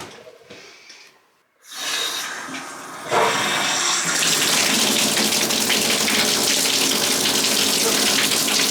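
Newly installed Oxygenics Evolution 34588 shower head turned on for its first run. Water starts about two seconds in, jumps to a full, loud spray about a second later, and then runs steadily.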